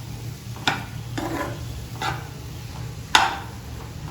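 Spatula stirring sautéing vegetables in a frying pan: four scraping strokes against the pan, the loudest about three seconds in, over a light sizzle.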